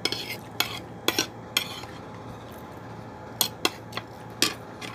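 Spoon clinking and scraping against a bowl while eating: several light clinks in the first two seconds, a pause, then four or five more near the end.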